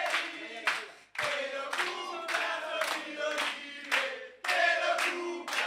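Live audience clapping in a steady rhythm, about two to three claps a second, while chanting together in unison.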